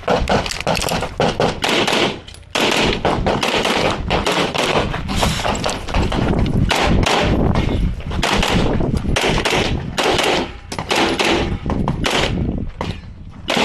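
Pistol gunfire during a USPSA stage run: rapid strings of shots fired in quick succession, broken by a few short pauses.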